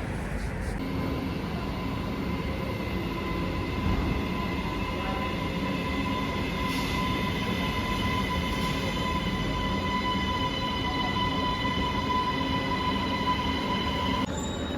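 Rail vehicle running, a train or metro carriage, with a steady high whine over a rumble. The whine comes in about a second in and cuts off just before the end.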